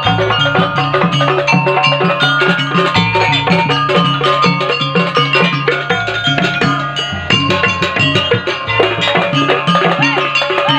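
Loud percussion-led dance music: ringing, mallet-struck pitched percussion over a steady, regular drum beat.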